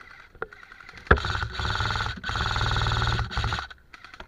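Airsoft gun firing on full auto in two long bursts, a rapid rattle of shots. The first burst starts about a second in, and after a short break the second stops a little before the end.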